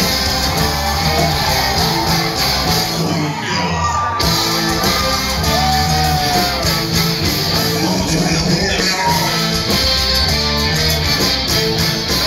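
Mexican ska band playing live: electric guitar, bass and drums under a singer's voice, loud and steady, heard from among the audience in the hall.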